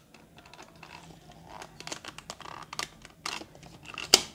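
Hands prying the ABS-plastic back cover off a toy robot figure's battery compartment: a run of small plastic clicks, creaks and scrapes, with a sharp snap near the end.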